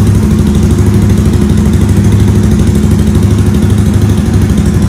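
Honda Twister's single-cylinder engine idling steadily through a Coyote aftermarket sport exhaust.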